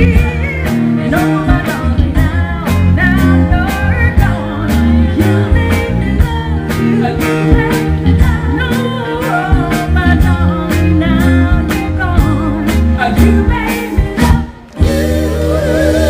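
Live band playing a Motown song with female singers, loud through the stage PA, with a heavy bass line and a steady drum beat. Near the end the music drops out for a moment and comes back on a long held note.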